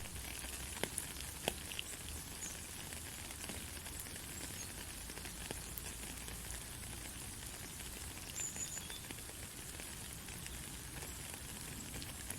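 Steady rain, an even hiss of falling water with scattered louder drops ticking close by, a few of them in the first two seconds.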